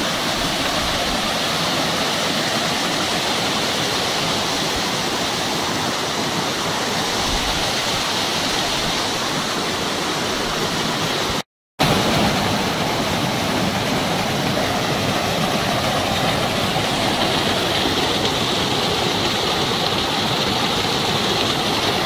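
Waterfall: water cascading over boulders, a steady loud rushing. It breaks off for a moment about halfway through.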